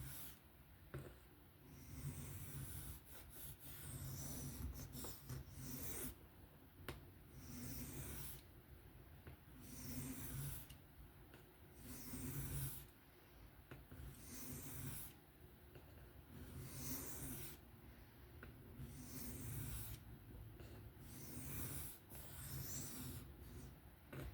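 Knife blade being stroked freehand across a 600-grit diamond sharpening plate: a steady series of gritty scraping strokes, one every second or two, raising a burr along the edge.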